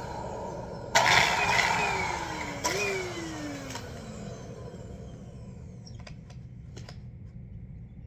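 Bissell 3-in-1 Turbo stick vacuum: a sudden loud rush about a second in, then its motor whine falls in pitch as it winds down, briefly picks up again near three seconds and falls away. A few light clicks follow.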